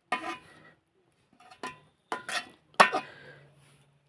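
Kitchen dishes and cutlery clinking and knocking, about five sharp strikes with a short ring after each, the loudest near three seconds in.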